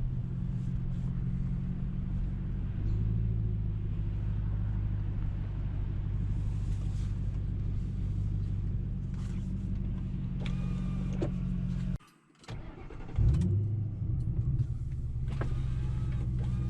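2005 Mercury Grand Marquis 4.6-litre V8 with its mufflers deleted (catalytic converters and H-pipe only), idling with a steady low exhaust drone through the open window. About twelve seconds in the sound drops out for half a second, then comes back with a short loud rise before settling into the steady drone again.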